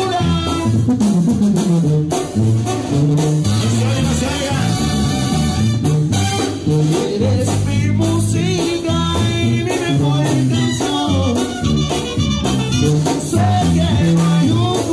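Live Mexican banda music: trumpets and trombones over a bouncing sousaphone bass line, with a singer, played loud and without a break.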